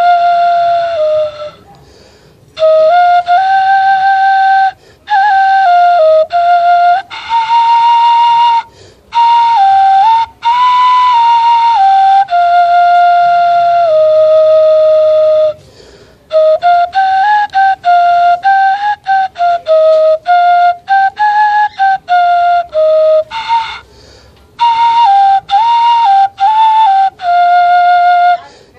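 Homemade bamboo native-style flute playing a slow melody of held notes that step up and down, in phrases broken by short pauses for breath.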